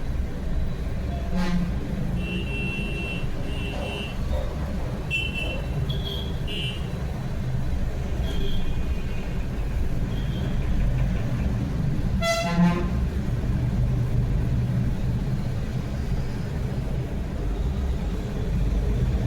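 Steady road-traffic rumble with a run of short, high horn toots and beeps over the first ten seconds, and one louder horn blast about twelve seconds in.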